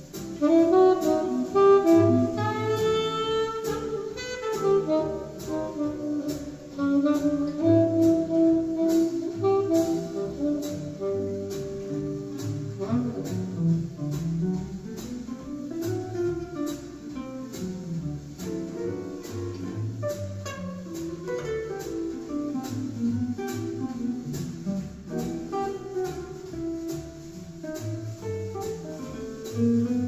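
Recorded jazz with a melodic lead over a bass line and a steady beat, played back through Infinity SM65 bookshelf speakers and picked up in the room.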